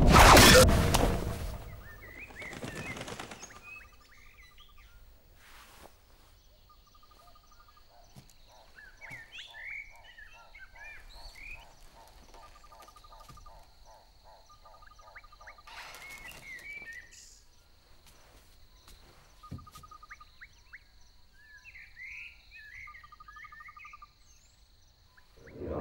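Opens with a loud whoosh as a sword is swung, with a fainter swish after it. Then birds chirp and trill on and off, with short repeated trills and rapid pulsed calls over a faint steady high tone.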